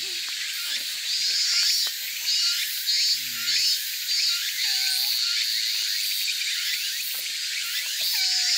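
Insect chorus in a summer wood: a steady high-pitched buzzing that swells in short pulses. A couple of short lower whistled notes come about five seconds in and again near the end.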